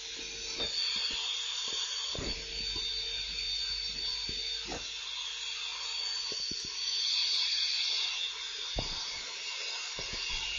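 Electric kitchen mixer running steadily at full speed: a high motor whine over a hissing rush, with a few light knocks.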